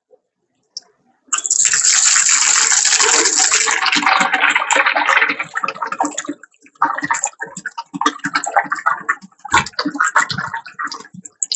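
Gravy poured into a big pot of hot oil and fried onions, sizzling loudly as it hits, starting about a second in. The sizzle dies down after a few seconds into irregular crackling and spattering as the pot settles.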